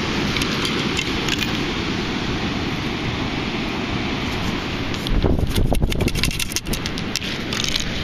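Steady rushing wind noise on the microphone. From about five to seven seconds in there is a burst of clicks, rattles and low buffeting as the metal sand scoop and gloved hand are handled.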